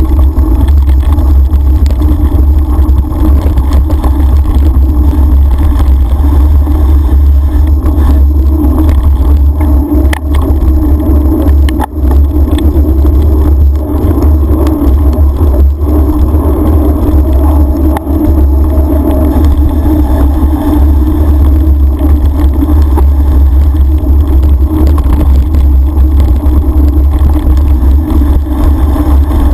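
Loud, steady low rumble of wind buffeting and riding vibration on a bike-mounted action camera's microphone, with a few brief knocks as the bike goes over bumps.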